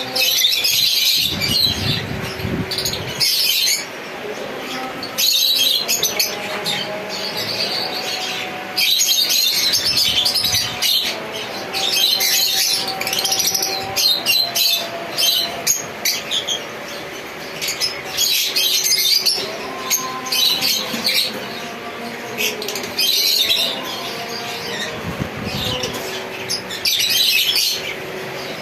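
A crowd of captive parrots calling together, a dense mix of chattering and squawks that swells in bursts every few seconds.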